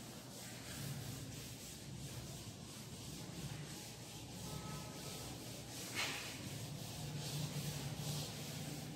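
Board duster wiping a chalkboard in repeated back-and-forth strokes, a dry scrubbing hiss. There is one sharp knock about six seconds in.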